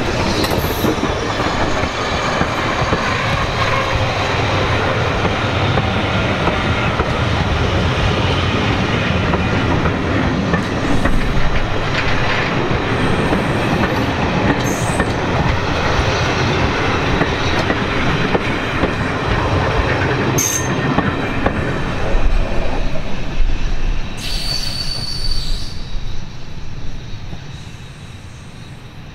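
A steam-hauled train of BR Mark 1 coaches running past at close range, the wheels rumbling and clicking on the track. The noise dies away over the last few seconds as the last coach goes by.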